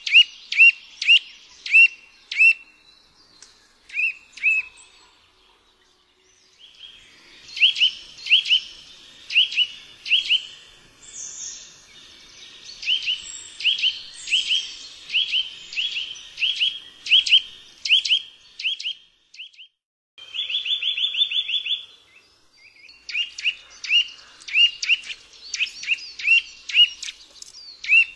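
Eurasian nuthatch singing: a series of loud, clear whistled notes, about two a second. Around twenty seconds in they give way to a rapid trill lasting a couple of seconds, then the slower whistles resume.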